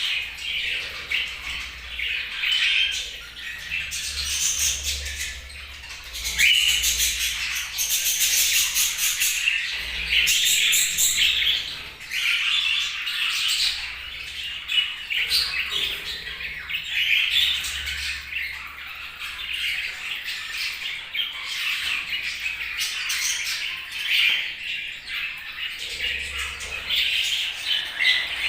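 Budgerigars chattering and chirping continuously, a dense run of warbling and squawking calls, with a stretch of fast, rapid-fire trilling notes around a quarter of the way in.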